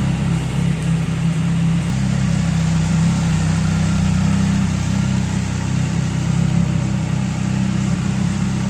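CFMoto SR sport bike's exhaust, the engine running at a steady, unchanging speed with an even tone throughout.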